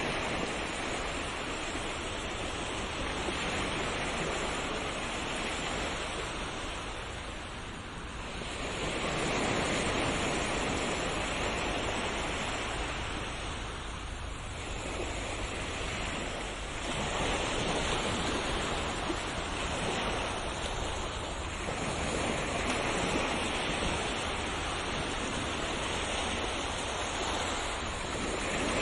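Sea waves: a continuous rush of surf that swells and eases every several seconds as each wave comes in and draws back.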